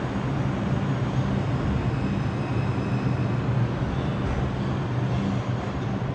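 R142 subway train running with a steady low hum and rumble, easing a little near the end.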